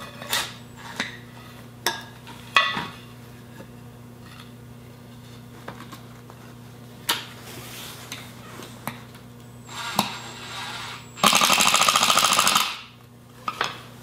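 Cordless impact driver driving a screw into wood, running in one loud rapid rattle for about a second and a half near the end. Before it, a few light knocks of wooden pieces being handled.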